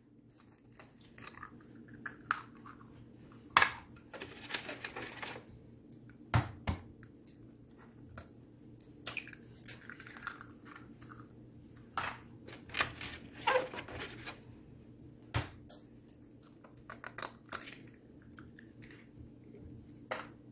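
Eggs being cracked against a bowl, with sharp irregular knocks and the crunch and crackle of breaking shells.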